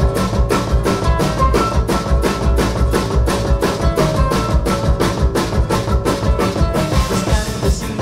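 Live band playing a fast heavy metal song on bluegrass instruments: strummed acoustic guitar and upright bass over a drum kit keeping a fast, steady beat.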